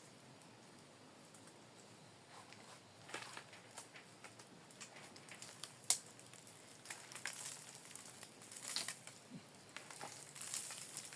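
Faint rustling and crinkling of leaves and twigs with scattered sharp snaps, as fruit is picked from a fig tree; the loudest snap comes about six seconds in.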